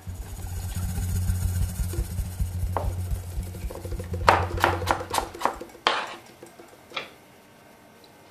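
A steady low hum for about the first five seconds. Over it comes a quick run of knocks and then two single louder taps: food and a knife being handled on a plastic cutting board.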